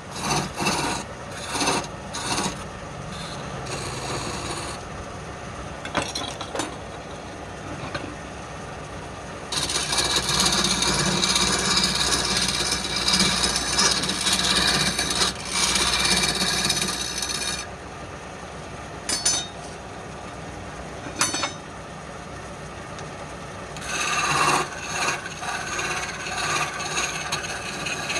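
An abrasive tool scraping on wood: a run of short strokes, then a long steady stretch of scraping in the middle, then more short strokes near the end.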